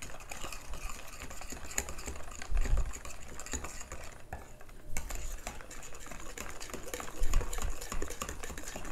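Flour being stirred into wet muffin batter in a mixing bowl: a continuous run of quick scraping clicks of the utensil against the bowl, with a few dull knocks.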